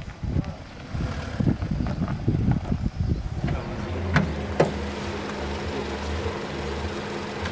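Scattered knocks and handling sounds, then a motor starts running steadily about three and a half seconds in, a low even hum. Just after it starts come two sharp clicks as a car's bonnet is released and lifted.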